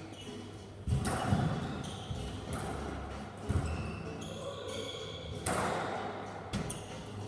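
Squash rally in an echoing court: the ball cracks off rackets and walls about five times, with short squeaks of shoes on the wooden floor between the hits.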